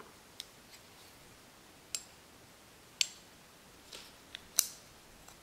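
Small sharp metal clicks and taps as the steel blade and handle parts of an Extrema Ratio BD4 Lucky folding knife are handled during reassembly. There are about seven scattered clicks, the loudest about three seconds in and another near the end.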